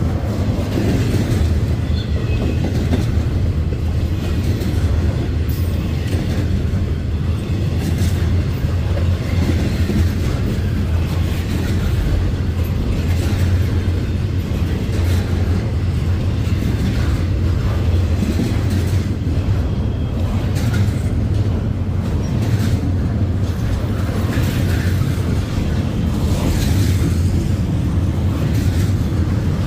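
Double-stack intermodal freight train rolling past: a steady low rumble of steel wheels on rail, with irregular clicks and clanks from the passing well cars.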